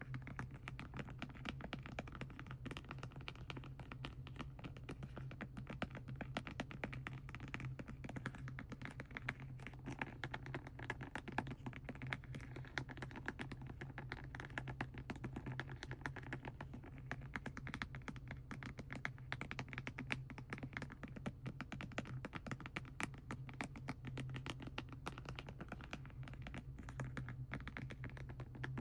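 Fast, continuous ASMR tapping on plastic paint packaging, many light clicks a second, over a low steady hum.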